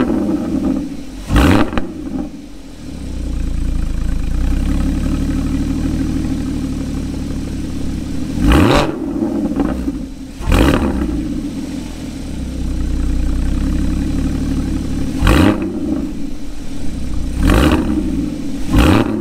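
Porsche 981 Cayman S 3.4-litre flat-six running through a Soul Performance valved cutback exhaust, heard at the tailpipes: a steady idle broken by about six quick throttle blips, each rising and falling sharply, one near the start and the rest in pairs through the middle and end.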